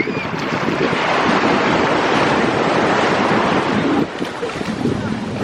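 Ocean surf: a wave washing in as a steady rush that swells about a second in and drops off suddenly near the end, with wind buffeting the microphone.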